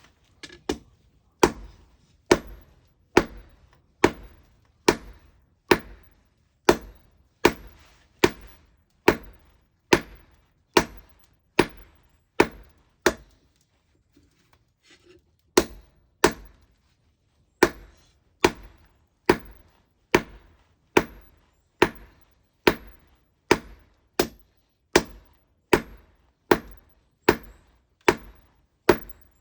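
Hammer forging an iron bar, with steady regular blows about one a second and a faint metallic ring after each. The blows pause for a couple of seconds a little before halfway, then carry on.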